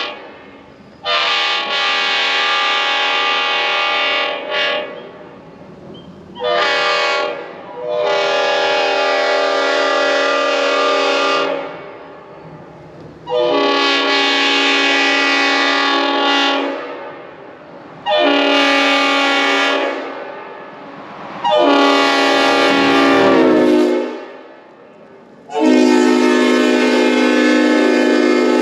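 Leslie RS5TF five-chime locomotive air horn with full-orifice bells, blown in a series of separate blasts. Most blasts are long chords of two to four seconds, with two short toots early on; the last blast is still sounding at the end.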